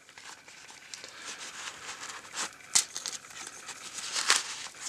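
Packaging crinkling and rustling as it is handled, with a few sharp crackles.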